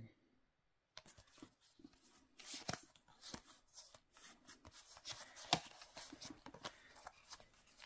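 Stiff trading cards being leafed through in the hands: faint, irregular clicks and slides of card against card, starting about a second in.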